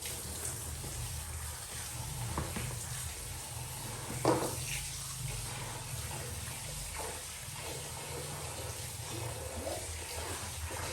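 Water running from a kitchen tap into a sink, with a few short knocks, the loudest about four seconds in.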